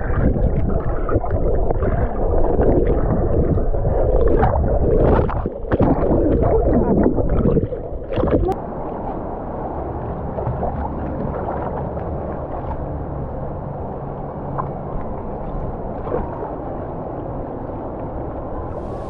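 Muffled underwater gurgling and churning of river water around a submerged action camera. About eight and a half seconds in it gives way to a steadier, quieter rush of the river's current and rapids.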